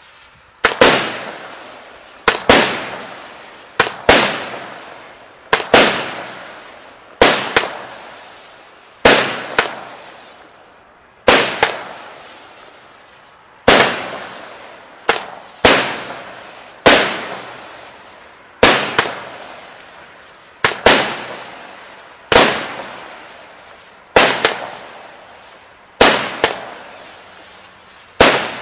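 A fireworks battery (cake) firing aerial shots in sequence. Each shot is a sharp bang, sometimes two close together, followed by a fading crackling hiss, about one every one and a half seconds.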